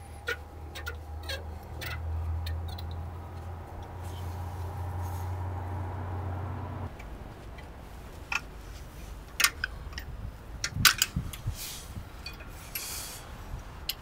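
Scattered light metallic clicks and clinks as a BMW X5 E53 rear brake caliper and its guide pin are handled and the caliper is pried with a screwdriver, busier in the second half. A low steady hum runs underneath and stops about seven seconds in.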